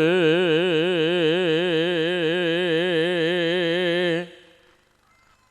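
A single voice holding one long sung note with a wide, even vibrato, in a Javanese chanted, tembang-like style. It fades out a little over four seconds in, leaving silence.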